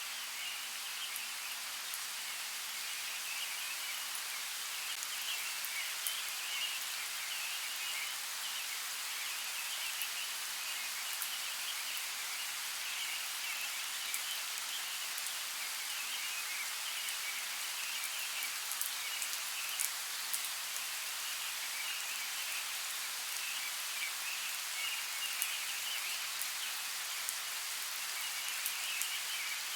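Light rain falling steadily through a forest, with scattered sharp drip ticks. A high, flickering chorus, probably of frogs, comes and goes beneath it.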